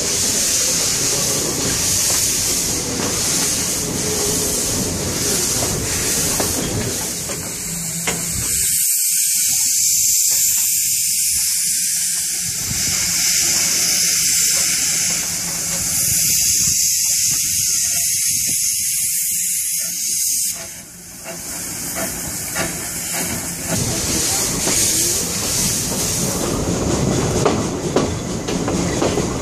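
Steady steam hiss from the 1877 Avonside L-class narrow-gauge steam locomotive as steam vents from its cylinders and chimney. Near the end the train is moving, with the wheels clacking on the rails.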